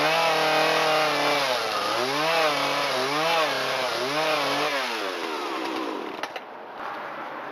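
Husqvarna two-stroke chainsaw running at high speed while cutting into a log. The engine pitch dips and climbs about three times, then drops away about five seconds in.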